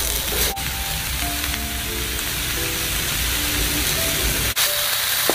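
Grated coconut and greens frying in a wok, with a steady sizzle, under background music of held notes.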